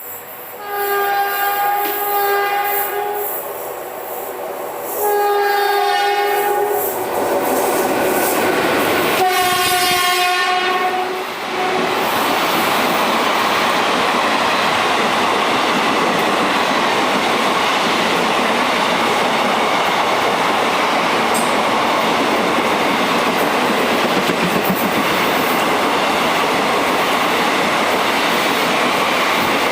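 Express train's locomotive horn sounding three times: a blast of about three seconds, a second of about two seconds, then a shorter one about nine seconds in. The coaches then run past at speed, a steady rumble and clatter of wheels on rail.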